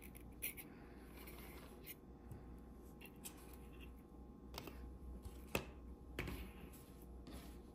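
Handling noise of a paper model car being turned over and set down by hand: light rustling of the paper and card with a few soft taps and clicks, the sharpest about two-thirds of the way through, over a steady low hum.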